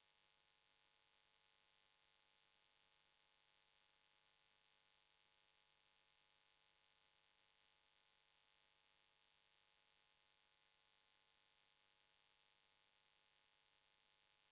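Near silence: a faint, steady hiss with a low electrical hum.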